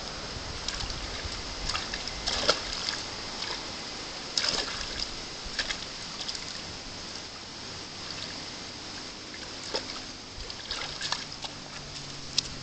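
Water splashing and sloshing in a plastic tub as a baby green monkey dabbles its hands in it, in irregular small splashes, the loudest about two and a half seconds in and again near four and a half seconds.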